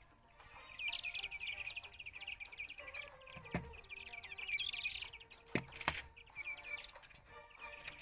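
Yellow-eyed babbler calling in a fast, high-pitched chattering run lasting several seconds. Two sharp clicks follow about two-thirds of the way in.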